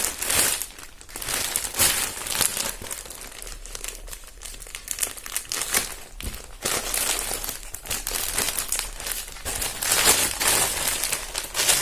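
Plastic parcel packaging being opened by hand, crinkling and rustling in irregular bursts, busiest at the start and again near the end.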